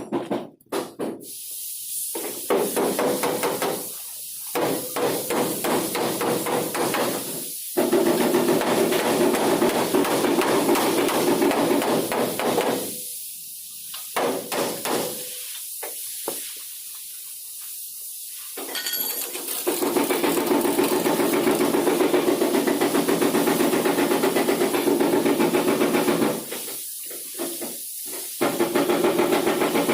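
Rapid repeated hammering, in bursts several seconds long broken by short pauses.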